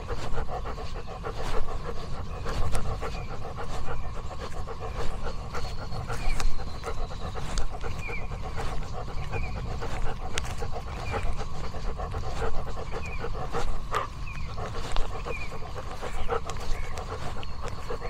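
An old dog panting fast and steadily.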